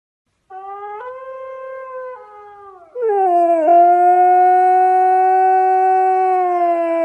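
Siberian husky howling: a quieter howl first, then about three seconds in a loud, long howl that holds steady and drops a little in pitch near the end.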